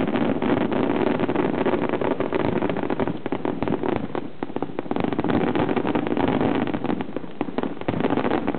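Fireworks going off in a dense, continuous barrage of rapid, overlapping crackles and bangs.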